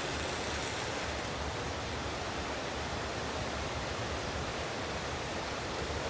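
Steady outdoor rushing noise, even and unbroken, like flowing water or wind.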